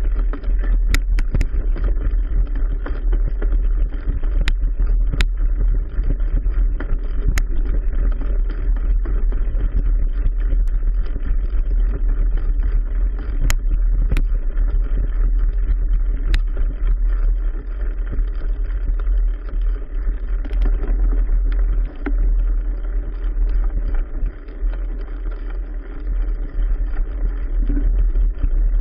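A mountain bike riding over a forest trail, heard through a handlebar-mounted GoPro Hero 3: a steady rumble of trail vibration and rushing noise. A handful of sharp knocks come as the bike jolts over bumps, mostly in the first half.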